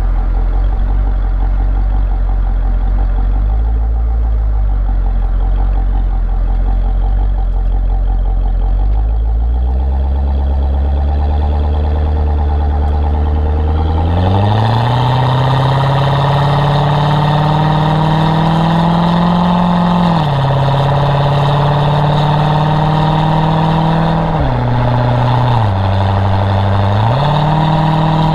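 Chevrolet Corvette C6 V8 engine and exhaust with an automatic gearbox: a low, steady rumble that climbs in pitch about ten seconds in and again about fourteen seconds in, holds at higher revs, and drops briefly twice, about twenty seconds in and near the end, before rising again.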